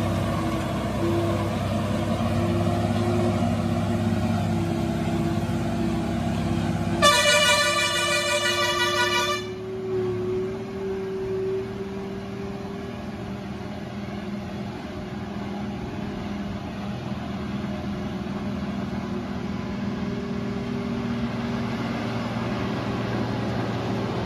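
Loaded multi-axle goods truck's diesel engine running steadily as the truck pulls away along the road. A horn sounds once, a single blast of about two and a half seconds, about seven seconds in.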